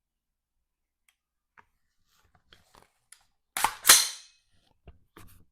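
Action of a Smith & Wesson M&P15 Sport II AR-15 rifle being worked by hand: two sharp metallic clacks about a third of a second apart as the bolt carrier is racked back and snaps forward, with a few light handling clicks before and after.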